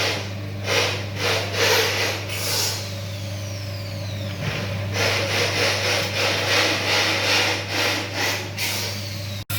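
Amplang cracker cooking machine running: a steady motor hum under repeated rough scraping as its stirrer works the pan, with a lull about halfway through.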